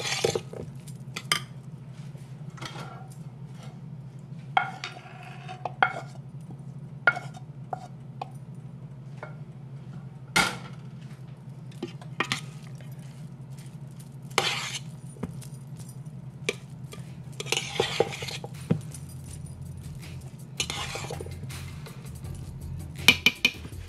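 A utensil scraping and clinking against a metal serving dish as rice, lentils and fried onions are stirred together: irregular clicks and short scrapes, over a steady low hum.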